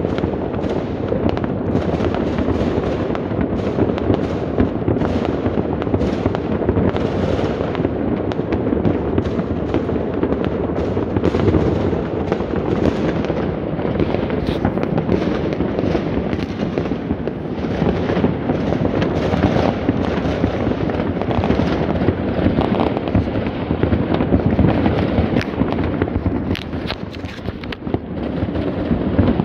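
Many fireworks and firecrackers going off at once: a continuous din of overlapping bangs, pops and crackle with no pause, easing a little near the end.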